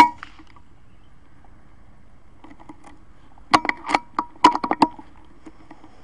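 A single rifle shot at the very start: one sharp crack with a brief metallic ring. From about three and a half to five seconds in comes a quick run of metallic clicks and clacks as the rifle is handled and its action worked for the next shot.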